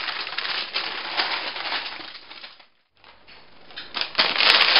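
Baking paper crinkling and rustling as it is peeled away from a freshly ironed beeswax-coated cotton cloth. The sound breaks off for a moment about three seconds in, then paper rustles again, louder, with a sharp tick near the end.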